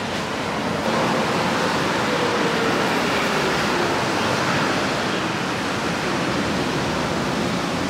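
Steady rushing city-street noise, a continuous roar of traffic and air, with a faint engine hum from passing vehicles.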